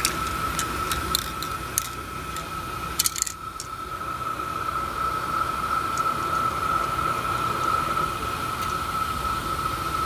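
Sharp plastic clicks and snaps as a yellow trigger-handle adapter is fitted and locked onto an aerosol spray-paint can: several in the first three seconds with a quick cluster about three seconds in, then a couple of lone clicks. A steady high-pitched tone and hiss run underneath.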